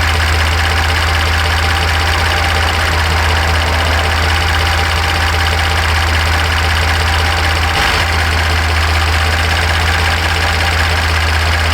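2018 Ford F-150's twin-turbo EcoBoost V6 idling steadily, past its startup misfire. The truck has a stored cylinder 4 injector fault that makes it skip only for a moment at startup.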